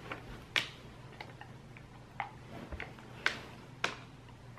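Siberian husky chewing a dried lamb lung cube treat slowly: faint, scattered crisp clicks and crunches from its jaws, about eight spread irregularly across a few seconds.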